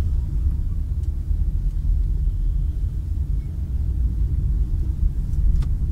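Steady low rumble of road and engine noise inside a moving car's cabin, with a couple of faint clicks near the end.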